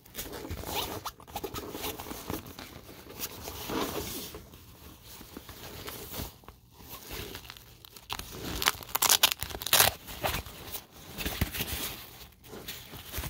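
Handling of a nylon hiking backpack: fabric rustling and irregular scraping of its straps and zipper, with a louder run of rasping strokes about two-thirds of the way through.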